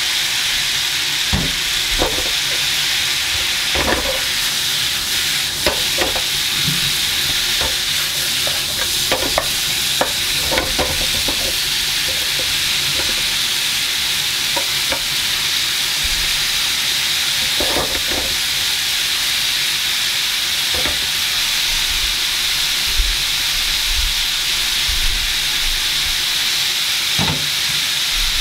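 Mixed vegetables sizzling in a nonstick frying pan as they are stir-fried: a steady frying hiss broken by scattered knocks and scrapes as the pieces are stirred and tossed.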